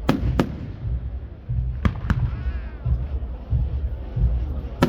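Aerial fireworks bursting in sharp bangs: two close together at the start, another pair about two seconds in, and one near the end, over a continuous low rumble.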